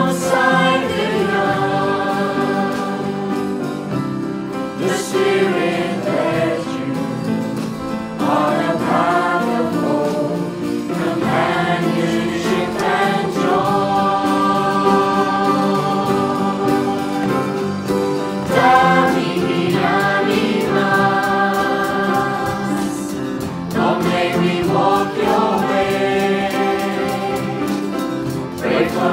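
A choir of students and adults singing a worship song, accompanied by acoustic guitar, piano and drums.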